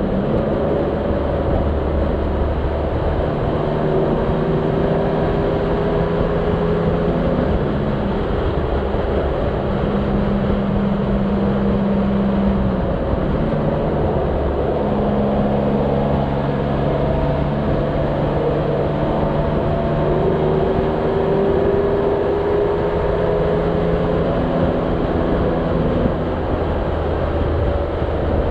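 Motorcycle riding at road speed, heard from the rider's position: a steady rush of wind and road noise over the engine. The engine note steps up and down several times.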